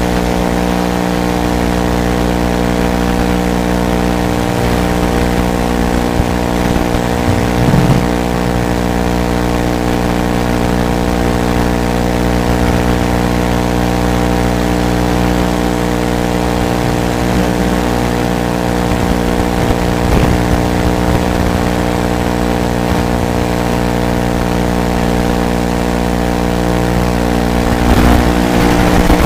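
Steady buzzing hum of many fixed tones carried on a 180-size FPV racing quadcopter's onboard video-feed audio, barely changing in pitch, with a brief louder burst near the end.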